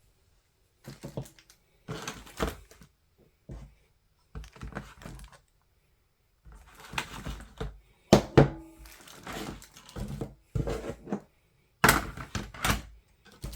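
Cardboard box and plastic parts being handled: irregular knocks, thunks and packaging rustles as pieces are fitted back into the box, with a sharper knock about eight seconds in and another near the end.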